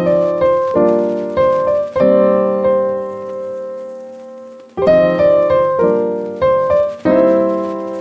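Background piano music: chords and notes struck and left to ring, with one chord held and slowly fading in the middle before the playing picks up again.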